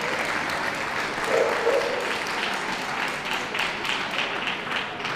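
Audience applauding steadily, with single claps standing out in the second half and the applause easing slightly toward the end.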